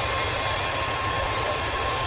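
Jet engines of a taxiing Boeing 747 running steadily: a low rumble and high hiss with a steady whistling tone running through it.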